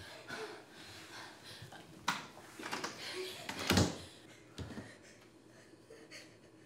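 A white panel pantry door being forced shut: a sharp knock about two seconds in, then a louder, deeper thump as it closes, and a lighter bump just after.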